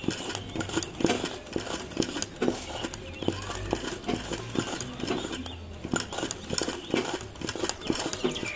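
Ordinary domestic sewing machine stitching applique petals, its needle mechanism clacking in a quick, uneven run of knocks.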